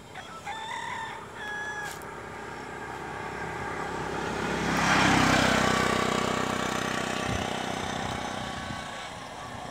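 A rooster crows near the start in two short phrases. Then a motor vehicle passes: its engine and road noise build up, are loudest about halfway through, and fade away.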